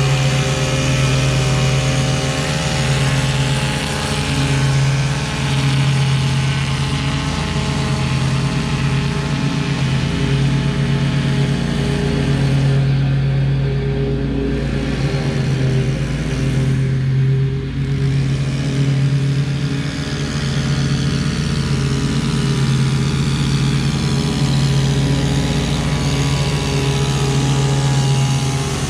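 A stand-on lawn mower's engine runs steadily under a string trimmer's engine whine. The trimmer fades out for a few seconds in the middle, then comes back.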